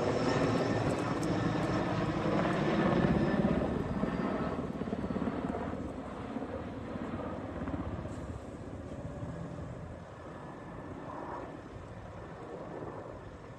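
Helicopter flying over, its rotor and engine loudest in the first few seconds and then fading away.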